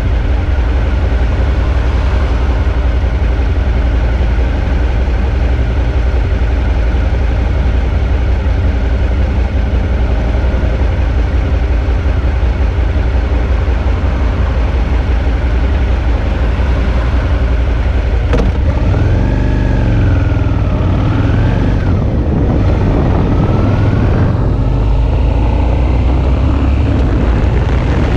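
Suzuki V-Strom 650's V-twin engine running on the road, under a heavy low rumble of wind and road noise. About 18 seconds in there is a sharp click, and after it the engine note rises and falls for several seconds as the revs change.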